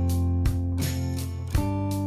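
Background music: sustained chords, with a new chord struck about one and a half seconds in.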